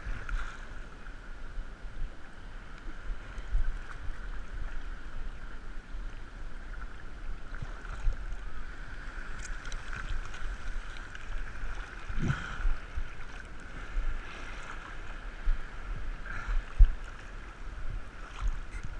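Muffled sloshing of surf around a GoPro in its waterproof housing held at water level, with scattered low knocks of water against the case. The strongest knock comes about twelve seconds in.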